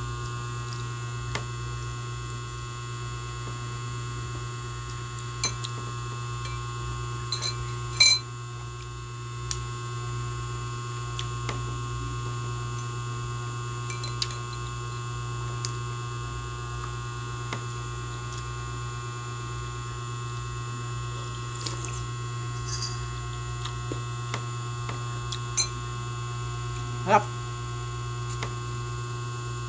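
Steady electrical hum, with scattered sharp clicks of a metal spoon against a glass bowl as young coconut meat is scooped out and eaten. The loudest clicks come about eight seconds in and near the end.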